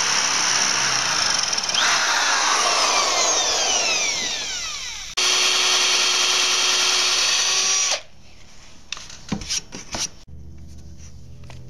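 Power drill with a spade bit boring into a wood board; about two seconds in its whine falls in pitch as the drill slows. At about five seconds a drill with a countersink bit runs steadily, cutting a countersink in wood, and stops suddenly near eight seconds. A few sharp clicks follow.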